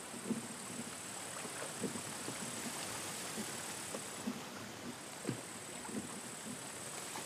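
Oars dipping and splashing as a small rowing boat is rowed across calm water, with soft splashes and knocks at irregular intervals, about one a second, over a faint steady high hiss.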